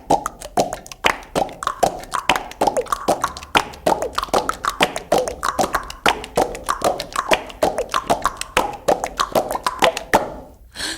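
Music with fast percussion: a dense run of sharp taps and clicks, several a second, with short pitched notes between them, dipping briefly just before the end.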